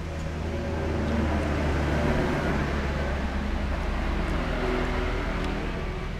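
A motor vehicle's engine passing close by, swelling over the first second or two, holding, then fading near the end.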